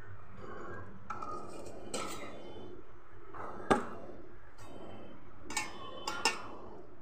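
Metal spatula scraping and clinking against a stainless steel pot while the fried chhana dumplings are moved about in the curry. A sharp clink comes a little past halfway and three more come near the end, over a steady low hum.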